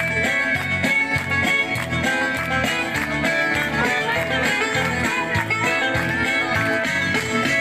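Lively music with plucked guitar over a steady beat, played loudly over a sound system to accompany dancing.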